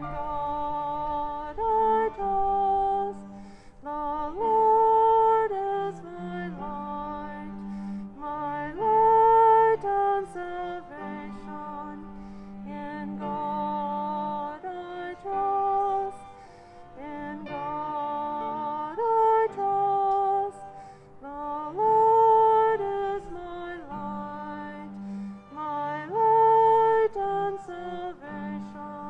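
Violin, cello and piano playing a slow, repeating chant melody: the violin carries the tune in held notes that glide into one another over sustained low cello notes.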